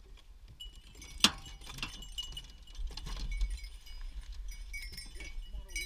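The latch of an aluminium dog box clanks open with one sharp click, followed by metallic jingling, clinking and rattling as beagles scramble out of the box.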